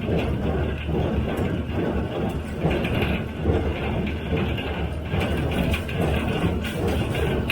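John Deere 348 square baler with a #42 pan-kicker bale ejector running under the pull of a tractor: a steady engine drone with the baler's machinery clacking in an even repeating rhythm.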